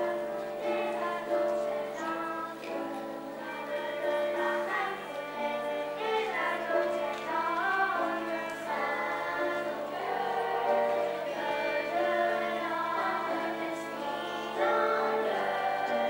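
Children's choir singing a piece in several voice parts, with a violin accompanying.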